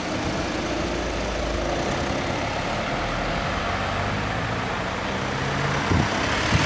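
Cars driving across a railway level crossing: engines running and tyre noise as they pass close by. Two short thumps come near the end, as wheels go over the rails.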